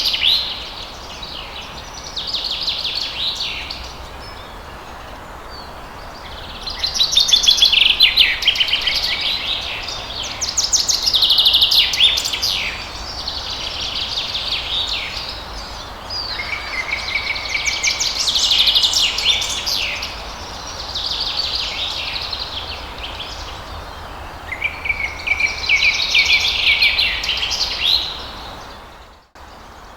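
Songbirds singing in bursts of rapid, high chirps and trills every few seconds over a steady rush of falling water. The sound cuts out for a moment near the end.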